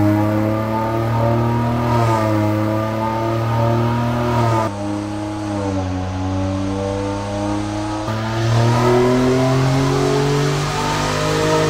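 Ford Bronco engine running under load on a chassis dyno, heard through an aftermarket full exhaust system. The note drops and softens about five seconds in, then climbs steadily in pitch toward the end.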